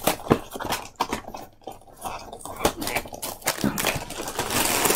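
A cardboard cereal box being opened by hand: an irregular run of crackles and clicks from the flap and plastic liner bag, with a longer, denser rustle near the end.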